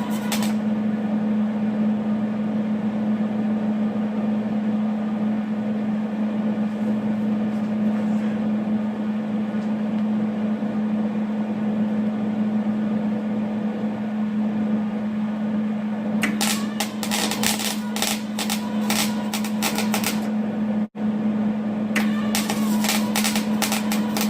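Welding: a steady loud hum runs throughout, and two bursts of rapid crackling, each lasting a few seconds, come near the end.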